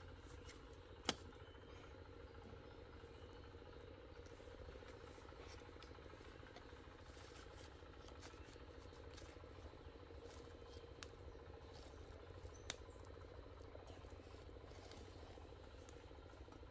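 Near silence: a faint steady low hum, broken by two sharp clicks, one about a second in and one about three-quarters of the way through.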